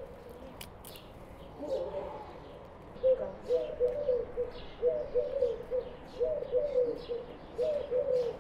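A dove cooing in about four short phrases of several notes each, starting about three seconds in, with faint chirps of small birds behind it.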